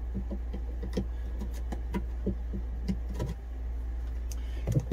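Multimeter test leads being unplugged and handled: scattered small clicks and rattles, with a louder knock near the end, over a steady low hum.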